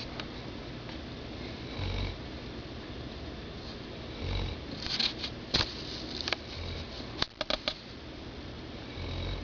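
Slow, regular snoring: a low snore about every two and a half seconds, four in all. Several sharp clicks come in the middle.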